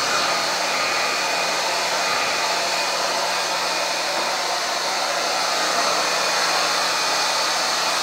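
Handheld hair dryer running steadily, a constant rush of blown air with a low hum underneath, aimed at a wrinkled t-shirt to smooth it out.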